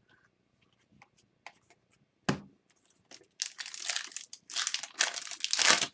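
Trading-card pack wrapper crinkling and tearing as cards are handled, loud and dense through the second half, after a few light clicks and a single knock about two seconds in.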